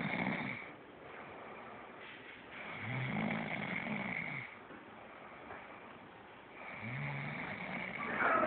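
A woman snoring in her sleep, one long snore about every four seconds: the tail of one at the start, then two full snores, each opening with a low rising rasp.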